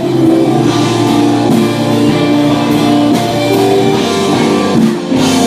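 Rock band playing loudly, led by electric guitars with drums underneath.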